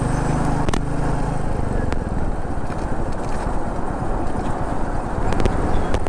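Royal Enfield Meteor 350's single-cylinder engine running steadily while riding along, under a heavy low rush of wind noise on a helmet-mounted lavalier mic.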